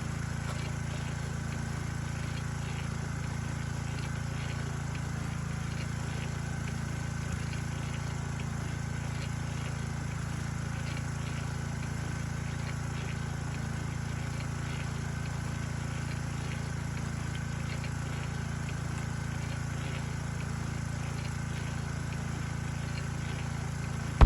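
A small engine or motor running steadily with a constant low hum, unchanging throughout.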